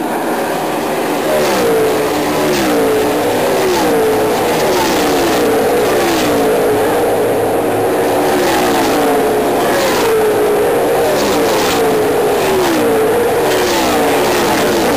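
NASCAR stock cars' V8 engines at full throttle passing one after another at speed, each pass dropping in pitch as it goes by, about once a second over a continuous engine drone.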